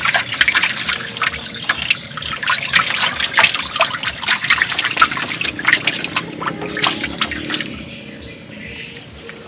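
Water splashing and sloshing in quick, irregular bursts, easing off near the end.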